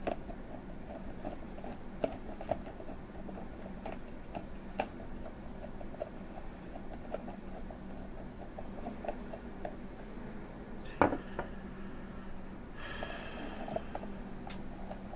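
Small ticks and clicks of a hand screwdriver turning screws in a clear acrylic frame, over a steady low hum, with a louder knock about eleven seconds in.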